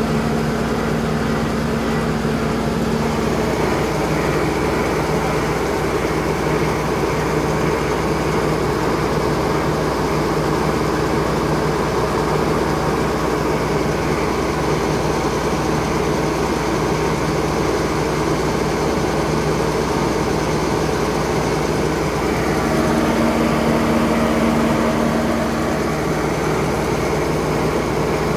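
Grain auger running steadily, drawing wheat out of the bottom of a truck trailer: a constant mechanical drone, with an extra hum that sounds at the start and again a few seconds before the end.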